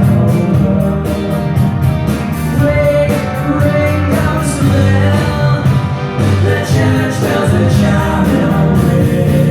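Rock band playing live: singing over a steady drum beat and full band accompaniment.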